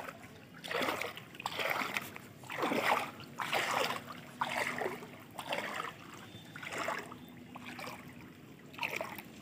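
Shallow floodwater splashing with each wading step, about one splash a second.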